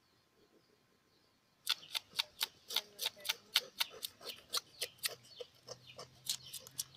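A knife scraping the scales off a fresh tilapia in quick, rhythmic strokes, about four a second, starting a little under two seconds in.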